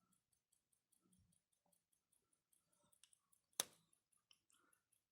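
Faint, rapid, even ticking of a mechanical IWC pocket watch movement, about five ticks a second, with one sharper handling click about three and a half seconds in.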